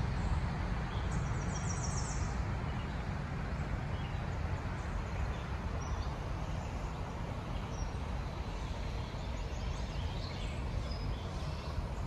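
Creek water rushing steadily over a riffle, an even noise with a low rumble under it. A short high trill about a second in and a few faint bird chirps in the second half.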